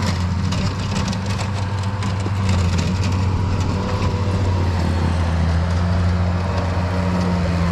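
Strong wind buffeting the microphone: a steady low rumble with a hissing haze and crackle, gusting slightly stronger about halfway through.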